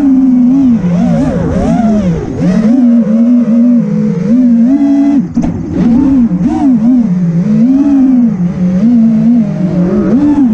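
Brushless motors and propellers of an FPV racing quad (Brother Hobby Returner R6 2306 2450kv) buzzing, the pitch rising and falling quickly over and over as the throttle is worked through turns and dives, heard from a camera mounted on the drone itself.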